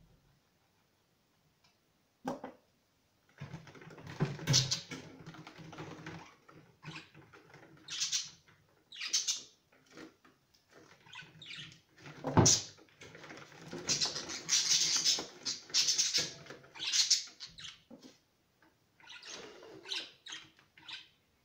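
Budgerigars squawking and chattering in irregular harsh bursts, sparse for the first few seconds, then dense and loudest through the middle before tailing off.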